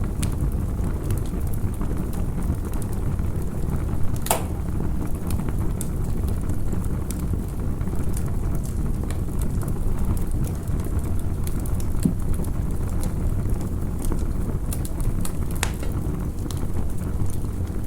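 Campfire burning: a steady low rumble of flames with scattered crackles, and two sharper pops, one about four seconds in and one near the end.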